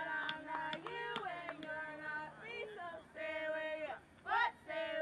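Young girls' voices singing a sing-song chant, in held notes with some swooping rises and falls, in short phrases.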